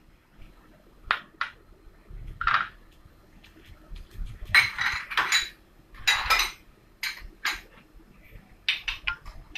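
Kitchen dishes and metal utensils clinking and clattering in a series of separate knocks: a few single clinks early on, then louder clusters of clatter through the second half.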